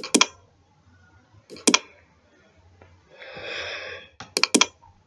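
Computer mouse clicking in quick groups of two or three: at the start, about a second and a half in, and again near the end. Between the last two groups comes a breath out through the nose, lasting about a second.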